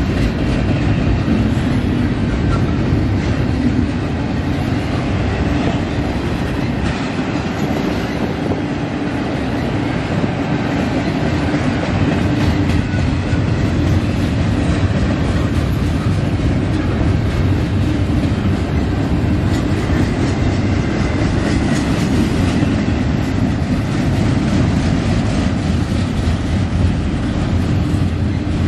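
Double-stack intermodal freight train's well cars rolling steadily past, a continuous heavy rumble of steel wheels on the rails.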